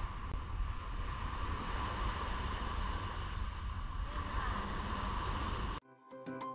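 Wind rumbling on the microphone over a steady outdoor hiss. Near the end it cuts off suddenly and background music with sharp, regular notes begins.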